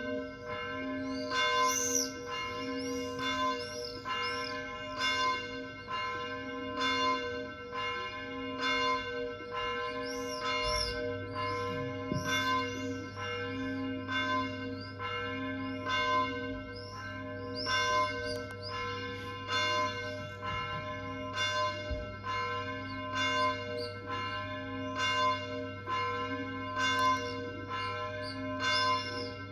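Church bell tolling repeatedly, about one stroke a second, each stroke ringing on into the next.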